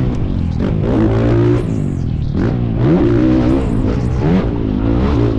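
Honda CRF450RW works motocross bike's single-cylinder four-stroke engine, heard from on board, revving hard and rising and falling in pitch several times as the throttle opens and shuts over the jumps.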